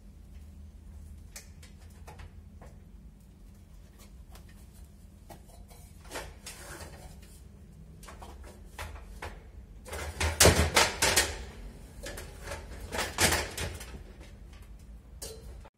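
Aluminium ladder being handled while its second section is set up: scattered knocks and clicks, with a louder run of clattering and scraping about two thirds of the way in and another knock-and-clatter a little later.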